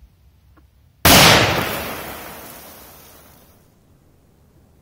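A K1000 firecracker exploding in wet sand: one sharp bang about a second in, dying away slowly over about two and a half seconds.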